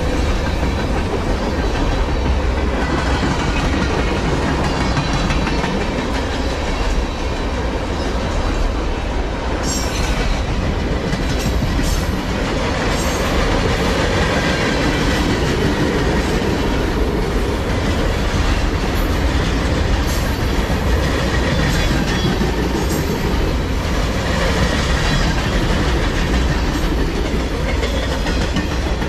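Freight train cars rolling past close by: a steady rumble and rattle of steel wheels on the rails, with sharp clacks of wheels over rail joints, bunched together from about ten to thirteen seconds in.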